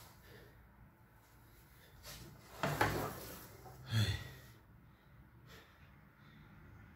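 A man's heavy breathing from exertion during push-ups: a loud forceful breath about two and a half seconds in, then a short grunting exhale that falls in pitch about a second later.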